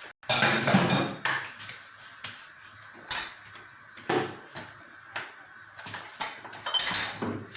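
Kitchen dishes and utensils being handled: a burst of clattering and scraping about the first second, then separate clinks and knocks about once a second, with a busier cluster near the end.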